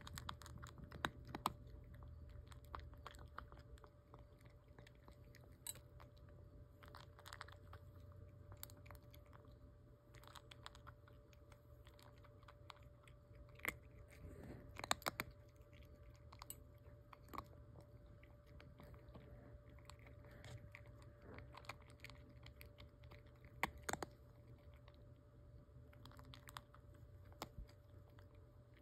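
Tabby cat crunching dry kibble from a stainless steel bowl: quiet, irregular crunching and clicking, with a few louder crunches.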